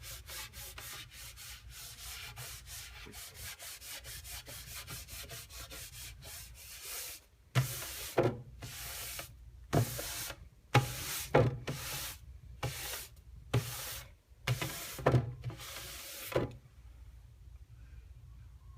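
Cloth rag rubbed up and down over a painted wooden shelf, wiping off wet paint to leave a wood-grain look. Quick short strokes at first, then, about halfway through, slower and longer strokes, each starting with a light bump, which stop a couple of seconds before the end.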